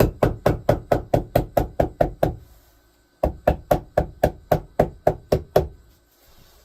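Staples being driven rapidly into the wooden dolly frame through a rubber-backed carpet piece: quick, even knocks, about four or five a second, in two runs with a short pause between.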